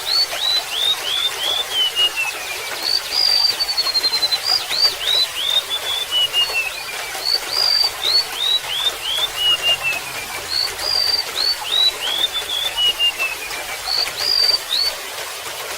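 Golden-bellied gerygone singing phrases of thin, high whistled notes, each note or run sliding down in pitch, repeated with short pauses, over a steady trickle of water.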